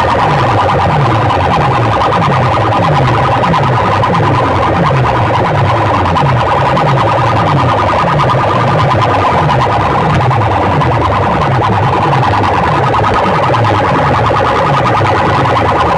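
Loud, distorted electronic competition track played through a large DJ sound system: a low bass tone drops in pitch about twice a second under steady, alarm-like high tones.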